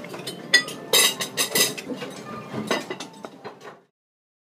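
Clinks and clatter of dishes and cutlery in a restaurant: a run of sharp knocks and clinks over background room noise, stopping abruptly near the end.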